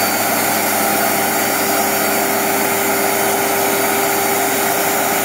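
Wood-Mizer portable band sawmill running steadily, its Kubota diesel engine driving the band blade, with an even hum and no change in pitch.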